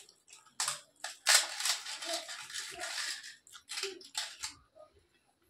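Crisp fried papad being bitten and chewed close to the microphone: a dense run of crackling crunches for about two seconds, then a few single crunches.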